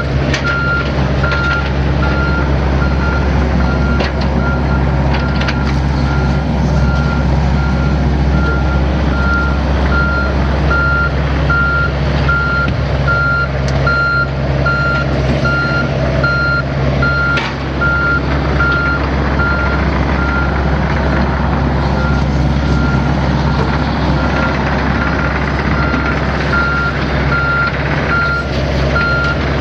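Two mini excavators, a John Deere 60G and a Kubota KX057-4, running their diesel engines under load as they push against each other blade to blade. A travel alarm beeps steadily without a break.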